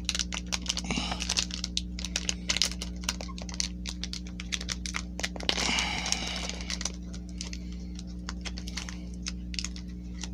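A foil Pokémon booster pack wrapper crackling and clicking under the fingers as it is picked at from the back seam, a quick irregular run of small clicks with a longer crinkle about five and a half seconds in. The wrapper does not give way. A steady low electrical hum runs underneath.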